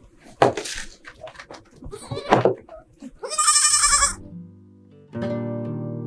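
A young goat bleats: a loud, wavering cry about three seconds in, after two shorter, rougher sounds. About a second after the cry, plucked-string music starts and holds a chord.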